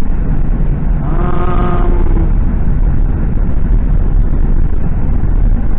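A Ford Crown Victoria Police Interceptor's 4.6-litre V8 and road noise heard from inside the cabin while driving, a steady heavy low rumble, with the cylinder 5 coil pack just replaced to cure a misfire. About a second in, a steady tone lasts for about a second over it.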